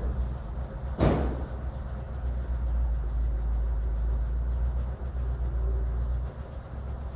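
Ford CMP Number 8 gun tractor's flathead V8 running at low speed as the truck creeps forward, a steady low rumble, with one sharp bang about a second in. The rumble drops quieter near the end.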